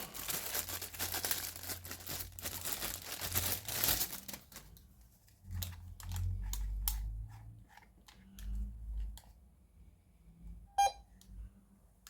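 Plastic packaging crinkling and tearing for about four seconds as a cable tester's probe wand is unwrapped, then scattered handling clicks and knocks. Near the end comes a single short electronic beep as the probe powers on.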